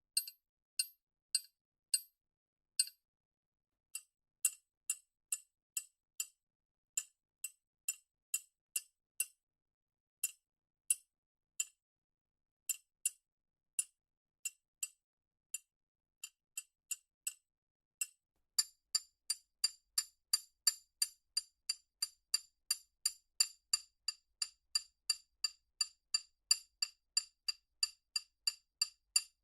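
Metal wrenches struck as percussion, each hit a short, bright metallic ring. The hits come singly with pauses at first, then about two-thirds of the way in they become a steady, faster run of about three a second.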